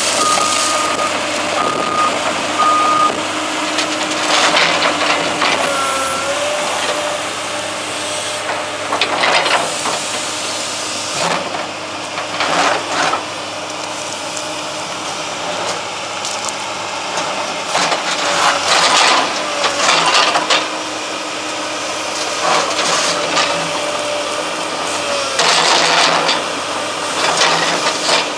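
Komatsu PC200LC-8 hydraulic excavator running: its travel alarm beeps about twice a second for the first three seconds as it tracks over gravel. Then the engine and hydraulics work steadily under load as it swings and moves the boom and bucket, with short bursts of loud noise every few seconds.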